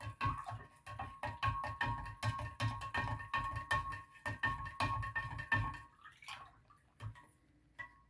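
Spoon stirring briskly in a large glass jar of cloudy salt water, knocking the glass in quick clicks, about three or four a second, that leave the jar ringing; the stirring stops about six seconds in, followed by a scrape and a few single taps. The stirring mixes in lye as the pH is raised toward 10.7.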